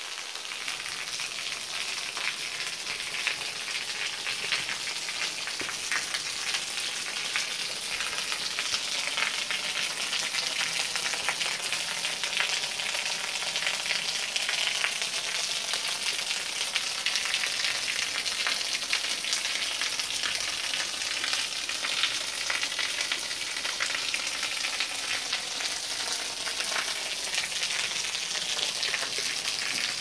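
Thin waterfall trickling down a sandstone rock face and splashing onto the stones below, with drops falling from the overhang: a steady, splashy patter.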